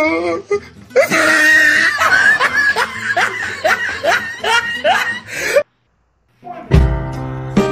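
Loud laughter, a run of short rising "ha" sounds about two a second, cut off abruptly; after a brief gap, music starts near the end.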